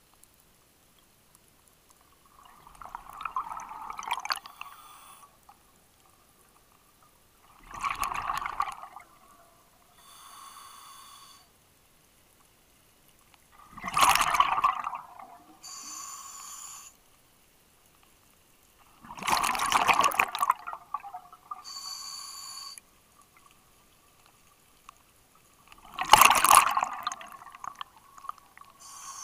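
Scuba diver breathing underwater through a regulator: five loud bubbling exhalations about six seconds apart, each followed by a quieter hiss of inhalation through the demand valve.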